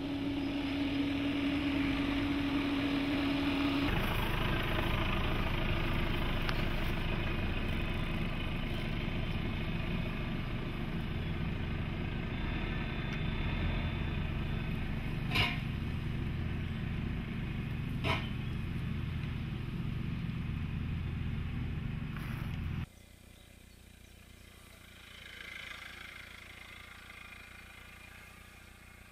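Jeep Cherokee's 2.2-litre diesel engine running steadily as the SUV crawls through tall grass at low speed. A steady hum sits over it for the first few seconds, and two sharp knocks come near the middle. About three-quarters of the way through, the sound drops suddenly to a faint background.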